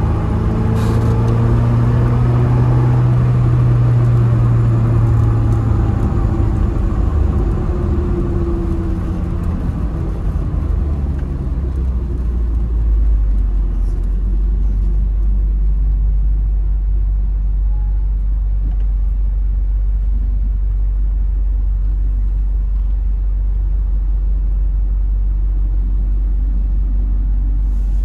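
Tofaş car's four-cylinder engine running through a loud aftermarket Konya-style exhaust, heard from inside the cabin. The engine note sinks slowly for the first several seconds as the car slows, then from about twelve seconds in settles into a steady, deep idle drone.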